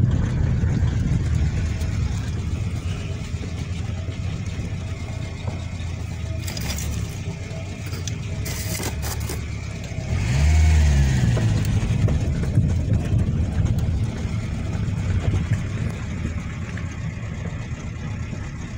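Engines running as a car crawls along a rough dirt track behind a JCB backhoe loader, heard from inside the car. About ten seconds in, an engine note swells and rises, then falls back.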